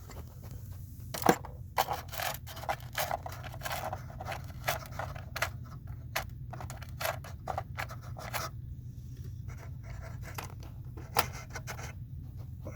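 Small hard objects clicking, knocking and scraping: a sharp knock about a second in, then a dense run of quick clicks and scrapes for several seconds, thinning to a few scattered knocks near the end. A steady low hum lies underneath.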